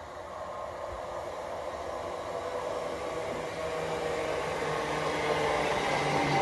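Class 387 Electrostar electric multiple unit approaching and drawing alongside, growing steadily louder. Its motor whine falls gently in pitch as the train slows.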